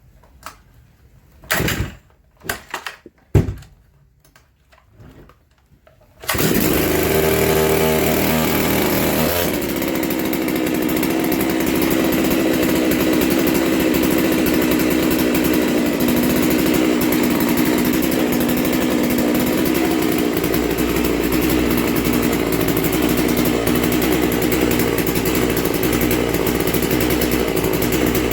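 Farmertech G660 two-stroke chainsaw, a clone of the Stihl MS660, on its first run: a few clicks and knocks of handling, then it starts on one pull about six seconds in and runs steadily, its tone settling about three seconds after it catches.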